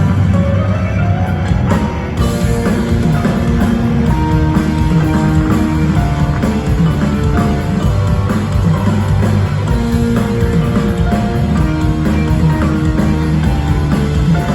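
Rock band playing an instrumental passage: electric guitar lines with held and stepping notes over bass and drum kit, with no singing.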